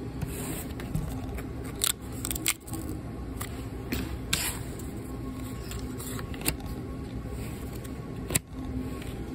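Paper pull-tab tickets being handled and their perforated tabs torn open: several sharp paper snaps and rustles over a steady background hum.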